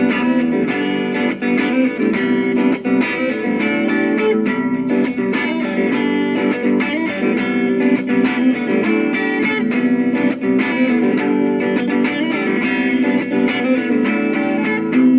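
Guitar music with plucked and strummed notes at a steady level.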